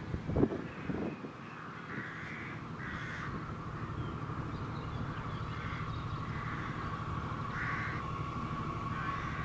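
Crows cawing, short single calls every second or two, over the low rumble and steady whine of an approaching regional train that grows slightly louder toward the end. A few low bumps sound in the first second.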